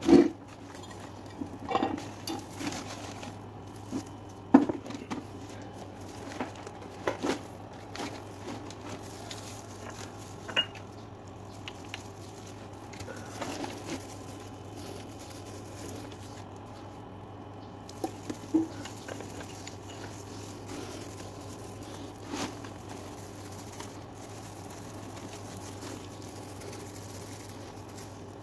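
Irregular light taps and clinks of hand work with painting tools and containers during leather repainting, loudest right at the start and about four and a half seconds in, thinning out in the last third, over a steady low hum.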